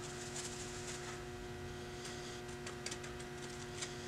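Glue being squeezed from a plastic squeeze bottle onto foam board in faint, short hisses, over a steady electrical mains hum.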